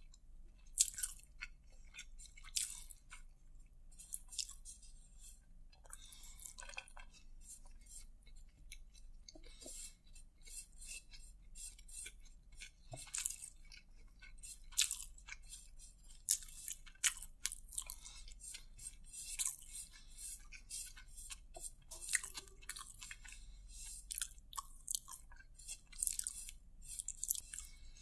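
Close-miked eating by hand: mouthfuls of rice being chewed, with many short, crisp clicks and crunches, and fingertips picking rice grains off a plate.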